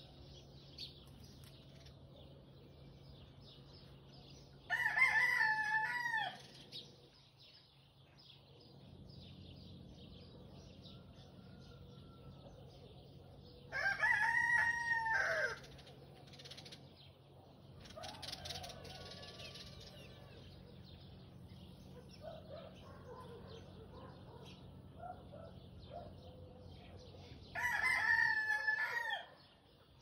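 A rooster crows three times: about five seconds in, around the middle, and near the end, each crow lasting a second or two. Between the crows, small birds keep up a steady high twittering.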